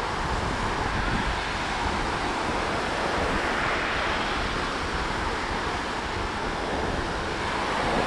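Ocean surf breaking and washing up the beach in a steady wash of noise, with wind buffeting the microphone.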